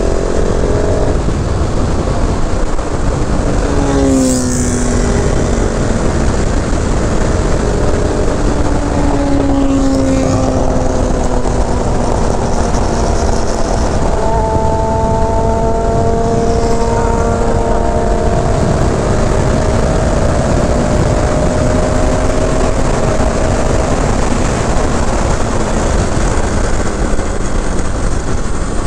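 KTM 690 SMC R supermoto's single-cylinder engine heard onboard while riding, under a heavy rush of wind on the microphone. The engine note falls about four seconds in, then holds a fairly steady cruising pitch through the middle.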